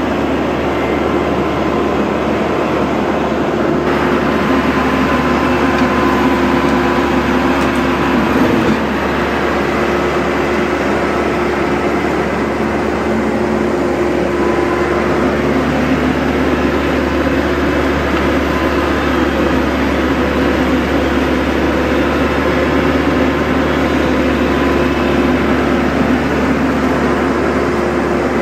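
TYM T574 tractor's diesel engine running steadily under load while its front-end loader works in a flowing creek, with the rush of the water underneath.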